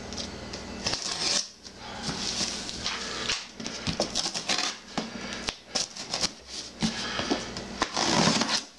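Packing tape being slit with a knife and pulled off a cardboard shipping box, with cardboard scraping and rustling as it is handled. There are irregular scrapes and clicks, and the loudest tearing rip comes near the end.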